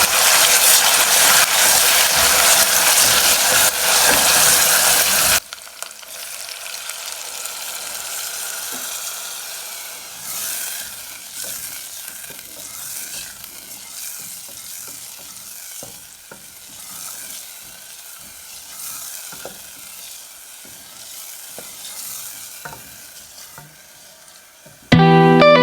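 Food frying in a pan: a loud, dense sizzle for about five seconds, then it cuts abruptly to a quieter sizzle with scattered clicks of a utensil stirring and knocking against the pan.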